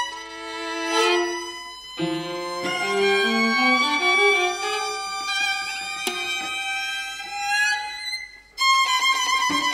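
String quartet of violins, viola and cello playing contemporary chamber music. Held notes break into a sudden loud entry about two seconds in, and the low line climbs step by step. Near the end the sound drops away briefly, then comes back loud with quick repeated notes.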